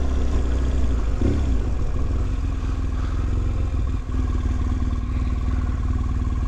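Motorcycle engine running steadily under way, picked up by the rider's helmet-mounted camera along with a strong low rumble. There is a brief dip in the sound about four seconds in.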